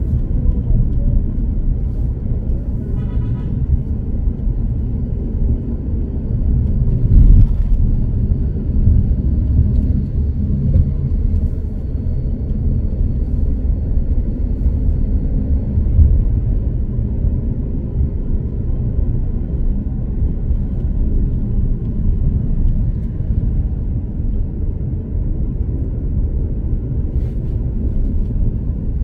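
Steady low rumble of driving along a road, the engine, tyre and wind noise of the vehicle carrying the camera, swelling louder about seven seconds in.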